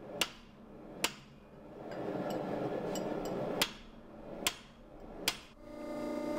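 Hand-hammer blows driving a steel drift through the eye of a hot steel hatchet billet on a swage block: five sharp metallic strikes, unevenly spaced. Near the end a steady machine hum takes over.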